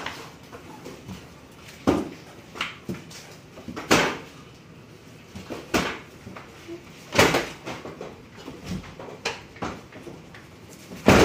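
Hinged screen-printing frames on manual print tables knocking down and being lifted, a sharp knock every one and a half to two seconds with lighter clatter in between.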